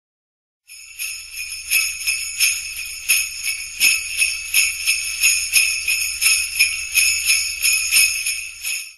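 Sleigh bells shaken in a steady rhythm, about three shakes a second. They start shortly in and cut off just before the end.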